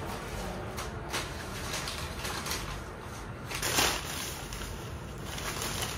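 Thin plastic carry bag rustling and crinkling as it is handled, with a few short crackles and one louder crinkle about three and a half seconds in.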